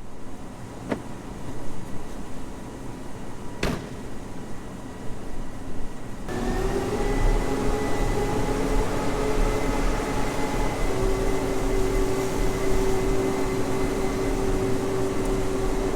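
Heavy farm machinery running steadily with a low rumble. About six seconds in, a steady whine joins it and holds.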